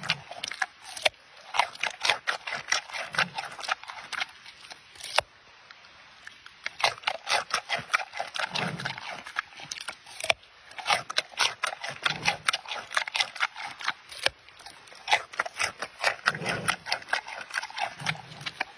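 Giant panda biting and chewing a raw carrot, crisp crunching in repeated bursts of rapid cracks, with a quieter pause about four to six seconds in.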